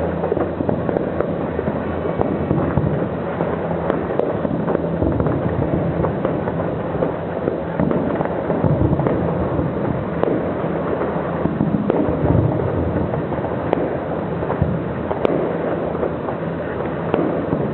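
Fireworks display: a dense, continuous barrage of bangs and crackling, with many overlapping shots.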